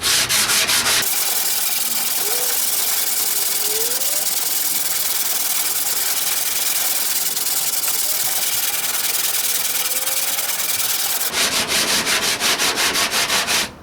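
Sanding the primered steel front fender of a 1968 AMC AMX, taking primer off to show where high and low spots remain after hammer-and-dolly work. Quick back-and-forth strokes at first, a steady stretch, then quick strokes again near the end.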